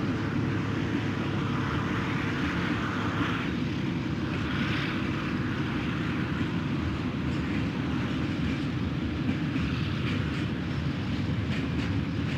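Train running on rails: a steady rumbling ride noise, as heard from aboard a moving train.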